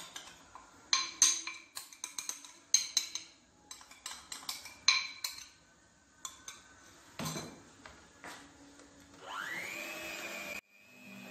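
Electric hand mixer's metal beaters clinking and knocking against a ceramic bowl several times, then the mixer's motor whirring up to speed about nine seconds in and running steadily until it cuts off suddenly near the end.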